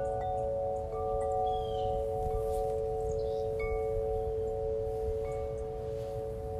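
Layered chime tones: several bell-like notes held steadily together, with higher chime notes coming in now and then over them.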